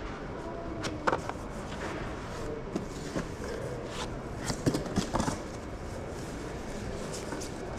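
Steady background noise of a large indoor hall, with a few sharp clicks and knocks about a second in and a quick cluster of them around the middle, like hard plastic card holders or boxes being handled.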